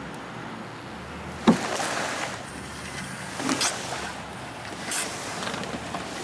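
Truck engine running at low speed while it tows a boat up a muddy bank. There is a sharp knock about one and a half seconds in and a few short scraping rushes from the hull dragging.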